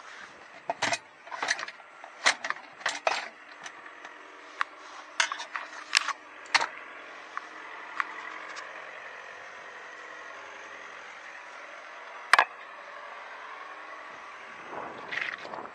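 Irregular sharp knocks and clatter from someone moving about and handling things inside a stripped-out truck cab, thick in the first few seconds, with one loud knock about twelve seconds in. A steady faint hiss runs underneath, and a short rush of noise comes near the end.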